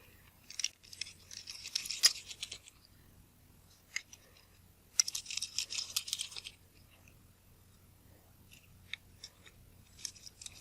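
Small screwdriver working the screws of a lens's bayonet mount, with metal grating against metal in two scratchy stretches of a second or two each and a few light clicks of small parts being handled in between.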